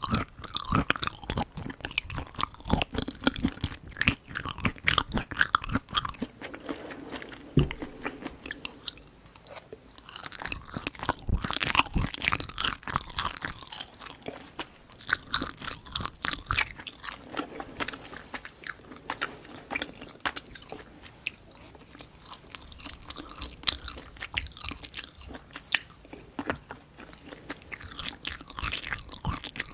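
Close-miked eating sounds: a person chewing and crunching food, with a dense, irregular run of sharp wet mouth clicks, busiest about a third of the way in.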